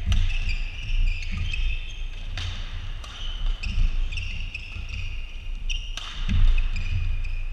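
Badminton doubles rally: sharp racket hits on the shuttlecock a second or more apart, the clearest about two and a half and six seconds in. Court shoes squeak briefly and footsteps thud on the hall floor.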